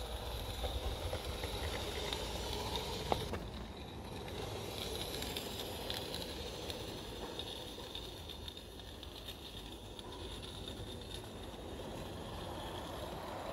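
Small 16mm-scale live-steam garden railway locomotive running past with a train of coaches, a steady low-level sound with no clear beat, and one sharp click about three seconds in.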